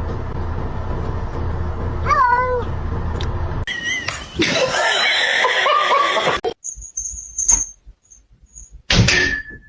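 A cat meowing: short wavering meows about two seconds in and again about four seconds in, over a low steady hum, followed by other brief sounds from the next clips.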